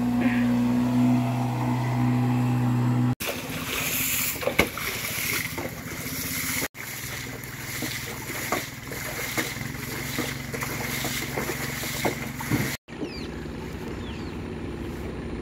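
Outboard motor of a small passing boat running with a steady low drone. After a cut, water splashes and sloshes as a half-flooded wooden canoe is bailed out with a scoop. The clip ends on a steady rushing noise.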